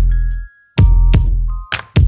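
Electronic background music with a steady beat of sharp hits and deep, sustained bass notes under a high synth melody.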